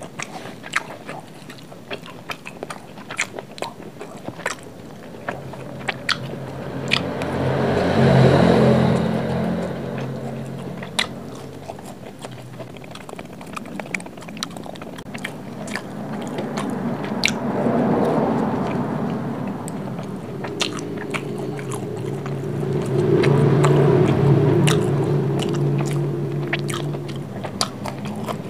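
Close-miked chewing and biting of a crisp fried patty and leftover fried rice, with many sharp wet mouth clicks and three louder stretches of chewing, about eight seconds in, near the middle and near the end.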